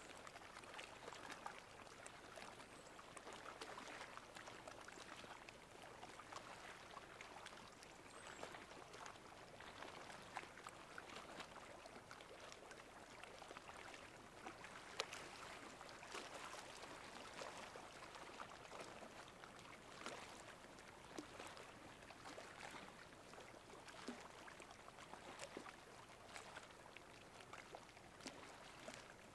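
Faint trickling and lapping of water at high tide, a steady fine crackle of tiny splashes and clicks.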